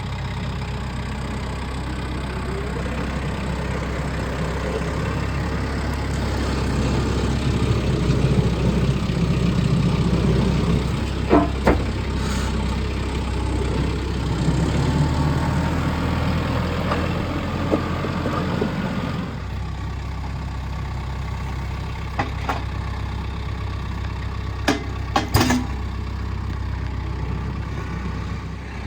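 Engine running steadily, fuller for the first two-thirds and then easing somewhat, with a few sharp knocks along the way.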